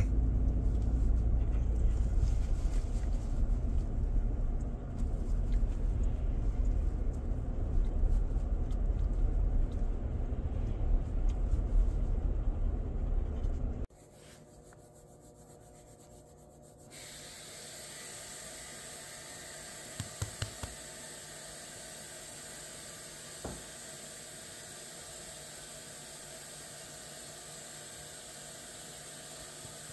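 Low rumble of road and engine noise inside a moving car's cabin. About halfway through it cuts off abruptly to a quiet room, then a steady hiss with a few soft clicks.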